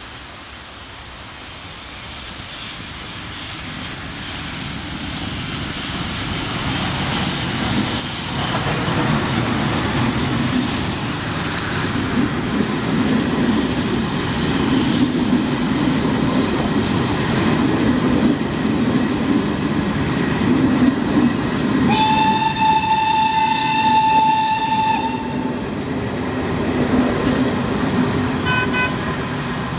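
Steam-hauled passenger train running past close by: the rumble of the locomotive and carriages on the rails grows louder as it nears. About 22 seconds in, a steam whistle gives one long blast of about three seconds, then a brief short toot near the end.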